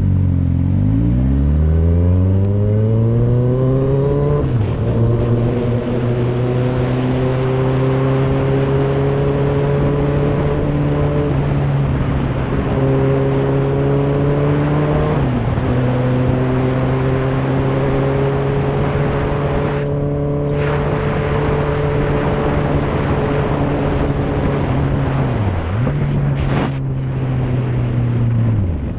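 Motorcycle engine pulling away, its revs climbing smoothly over the first few seconds, then cruising steadily. The revs drop briefly a few times, as at gear changes. A steady rush of wet-road and wind noise runs underneath.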